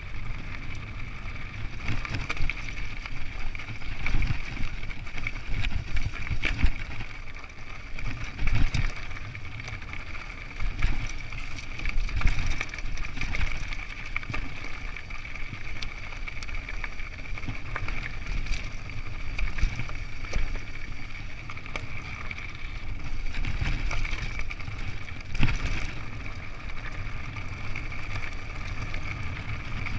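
Mountain bike riding down a rough, rocky trail: a low wind rumble on the microphone with frequent clicks, knocks and rattles as the bike jolts over stones, over a steady high hum.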